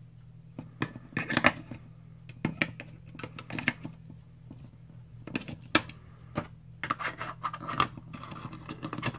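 Small batteries being pressed into a camping lantern's plastic battery holder, then its plastic base cap being fitted back on: a string of irregular clicks and scrapes, loudest about one and a half seconds in, over a low steady hum.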